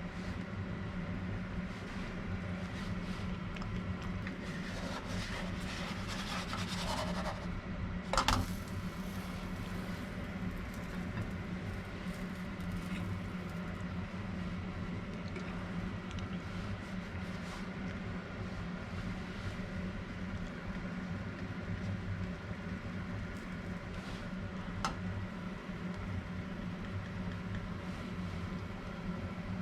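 Steady electric fan hum in a kitchen, with some brief rustling and scraping, a sharp clack about eight seconds in, and a lighter click later on.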